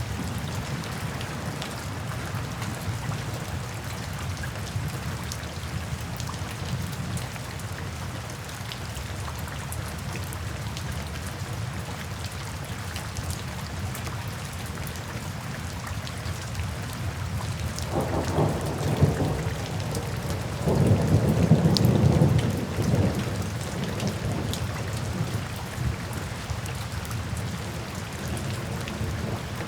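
Steady rain falling, with low rolling thunder that swells up twice a little past the middle, a few seconds apart.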